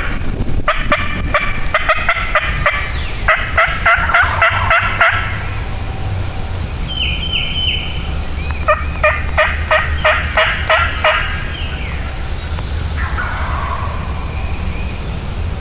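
Turkey calling: a long run of rhythmic notes about four a second, then a second, shorter run about eight seconds in.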